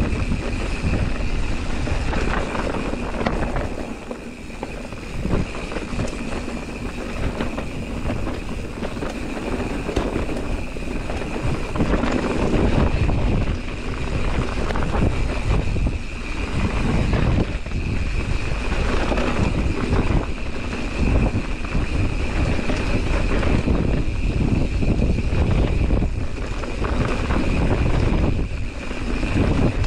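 Mountain bike ridden downhill on a dirt trail: knobby tyres rolling over dirt and roots, and the bike's chain and frame rattling and knocking over bumps. Wind rumbles on the microphone throughout.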